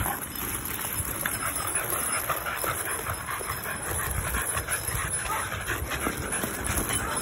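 Heavy steel chains dragging and clinking over concrete as two dogs pull them along, a steady scraping with many small link rattles, with the working dogs panting.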